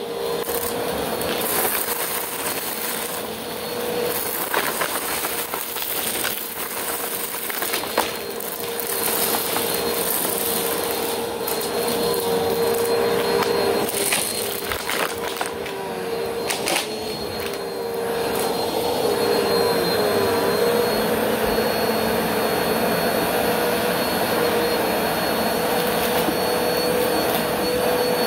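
Bagless upright vacuum cleaner running with a steady motor whine while it sucks up loose shredded stuffing and bits from a carpet. Sharp clicks and rattles of debris going up the intake come through for most of the first twenty seconds. Then the running gets a little louder and steadier.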